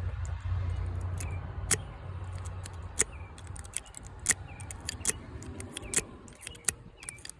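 Lock pick and tension tool working the pins of an American Lock padlock core, making sharp, irregular metallic clicks a few times a second. A low rumble fades out over the first few seconds.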